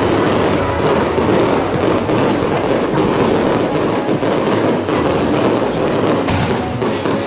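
Fireworks and firecrackers going off in a dense, continuous crackle of rapid bangs, with no pause.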